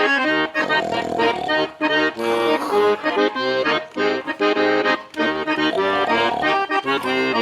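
Accordion (gaúcho gaita) playing an instrumental passage of a bugio, with a melody over bass notes and chords in a steady, swaying rhythm.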